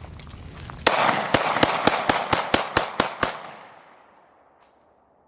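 A handgun fired rapidly, about eleven shots in two and a half seconds, with the echo dying away after the last shot.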